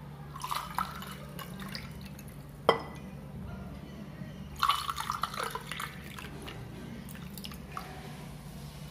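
Lemon juice poured from a glass jar into two glasses over ice cubes, in two pours, one near the start and one about halfway through, with a single sharp clink of glass between them, about three seconds in.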